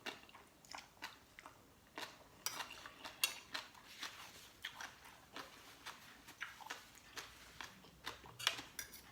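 Close-up eating sounds: chewing and wet lip smacks while eating spicy papaya salad with chicken feet, a string of short, irregular clicks a few times a second.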